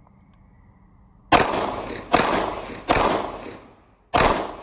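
Four 9mm pistol shots from a Sig Sauer M17, fired under a second apart with a slightly longer gap before the fourth, each ringing out briefly in an echo.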